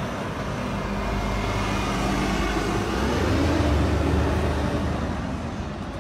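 Road traffic: engines of a double-decker bus and cars running and moving off, a continuous low rumble that swells to its loudest a little past halfway and then eases.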